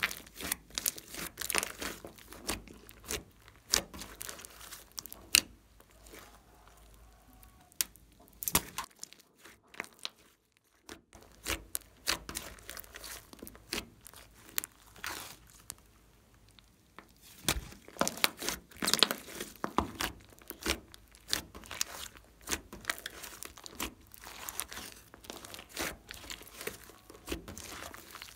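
Hands squeezing, kneading and pressing a lump of glossy slime, giving irregular sticky pops and crackles, with a short lull about ten seconds in.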